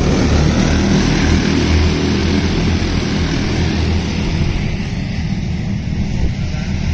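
A pack of racing karts passing at speed, their small engines buzzing together as one drone, then fading as the field pulls away down the track from about four seconds in.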